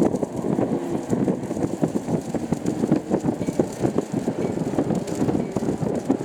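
A herd of pigs grunting, many short overlapping grunts forming a continuous jumble.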